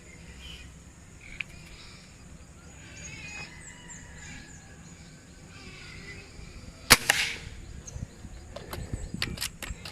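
One shot from a Gamo Chakal .22 PCP air rifle about seven seconds in: a single sharp crack with a brief ring after it, followed a second or so later by a quick series of clicks. Faint bird chirps a few seconds in.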